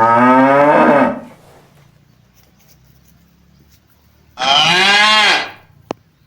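Cow mooing twice. The first long moo is already sounding and dies away after about a second; the second comes about four seconds in, rising and then falling in pitch, and lasts about a second.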